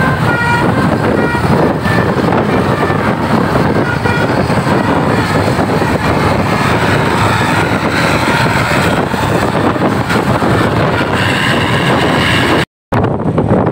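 A bus's Basuri telolet horn plays the last of a quick run of short notes at changing pitches in the first second or so. Then the loud, steady noise of the bus passing close by takes over. The sound cuts out for an instant near the end.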